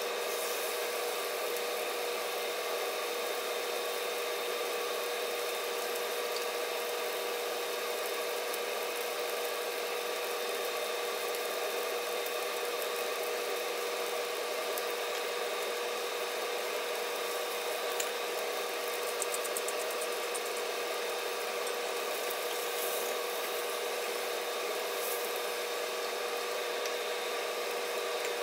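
Wagyu steak searing in a hot oiled skillet: a steady sizzle with a few faint pops in the second half, over a constant hum with a few fixed tones.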